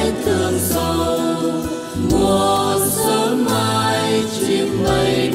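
A vocal group singing a Vietnamese song in harmony into microphones, holding long notes over an instrumental accompaniment.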